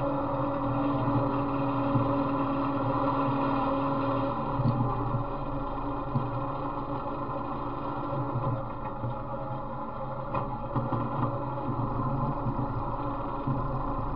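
Off-road riding mower's small engine running as it drives along a rough trail, a steady drone that dips in pitch about four seconds in and eases off a little past the middle, with a few sharp clicks.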